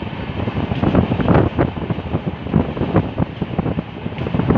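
Wind buffeting the microphone held out of a moving passenger train's window, over the train's running rumble, in irregular gusts.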